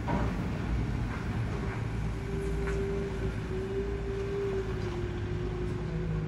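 A motor running: a steady low rumble with a hum held at one pitch from about two seconds in, dipping slightly a little before the end, and a few faint ticks over it.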